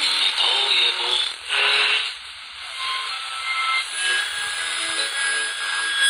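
Atlanfa AT-105 multiband radio's loudspeaker receiving shortwave: snatches of a broadcast fade in and out during the first two seconds, then hissing static with faint steady whistle tones.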